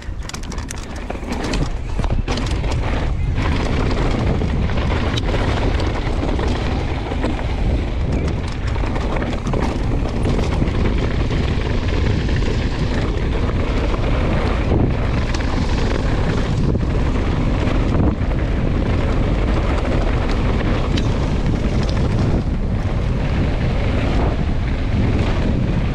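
Wind rushing over the camera microphone and mountain bike tyres rumbling over a dirt trail at speed, with scattered knocks and rattles from the bike over bumps.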